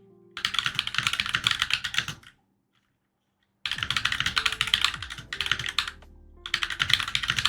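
Keys of a newly assembled Glorious GMMK 96% mechanical keyboard being typed rapidly, in three quick runs of clacks of about two seconds each with short pauses between.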